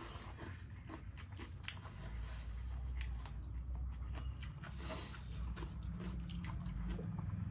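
Close-up chewing and biting of food, a run of short, sharp mouth clicks and crunches. A low steady hum sits underneath, stronger from about two seconds in.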